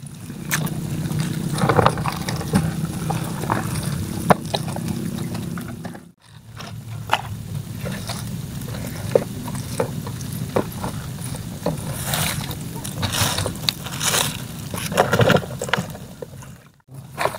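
A wet heap of live shrimp and crabs on a plastic sheet, crackling and scraping as hands rake through it and the shrimp flick, giving many small clicks and wet rustles. A steady low hum runs underneath.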